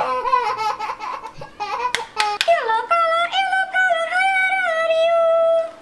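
A child's high-pitched voice vocalising in wavering, sing-song sounds, with a few sharp clicks about two seconds in, then one long held high note from about three seconds in until just before the end.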